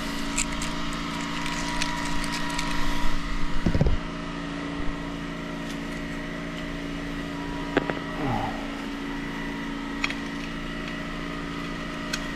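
Pressure-washer engine running steadily, with a few knocks and clinks as a brass jet nozzle, metal lance and suction hose of a mud-sucker attachment are fitted together.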